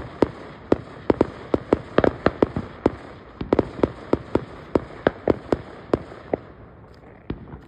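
Fireworks going off: a fast, irregular run of sharp bangs, about four a second, thinning out near the end.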